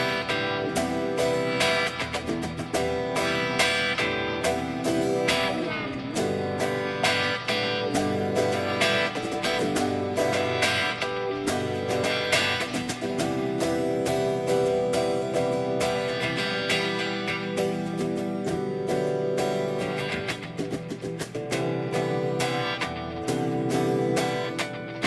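Guitar music, with rapid, closely spaced plucked and strummed notes.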